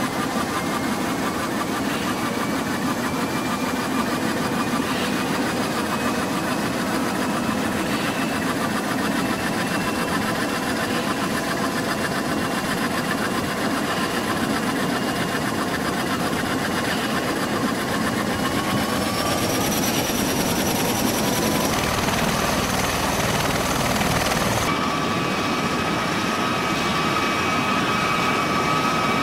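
V-22 Osprey tiltrotor running on the ground in helicopter mode: twin turboshaft engines whining over the steady beat and rush of the proprotors. The engine whine rises in pitch about two-thirds of the way through, and the sound changes abruptly twice near the end.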